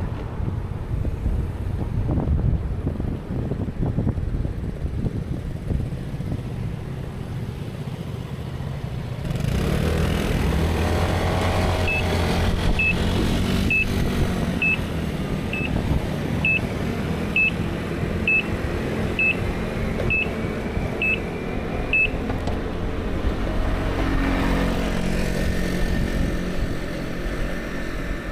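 Wind buffeting the microphone at first, then a motor vehicle's engine running close by. While the engine runs, a short high electronic beep repeats about once a second, eleven times.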